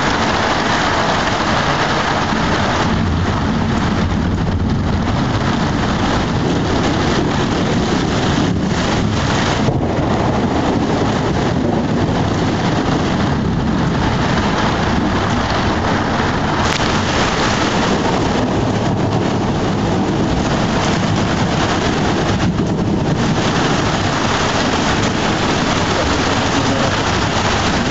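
Heavy thunderstorm rain falling steadily, a dense hiss with a low rumble underneath.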